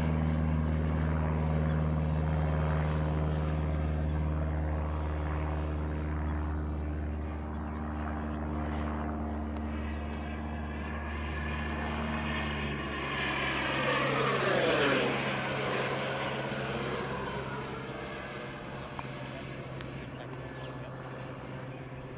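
Whine of an E-flite F/A-18D radio-controlled electric ducted-fan jet in flight. A little over halfway through it passes close, growing louder, and its high whine falls in pitch as it goes by. A steady low hum underneath stops just before the pass.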